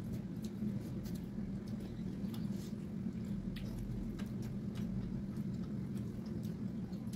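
Close-miked eating sounds: wet chewing and lip smacking as rice and pork trotters are eaten by hand, in short scattered clicks over a steady low hum.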